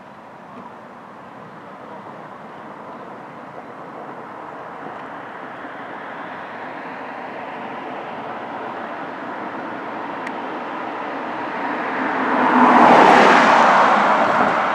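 A passing vehicle's steady rushing noise, growing slowly louder, swelling sharply to its loudest about thirteen seconds in as it passes close, then fading.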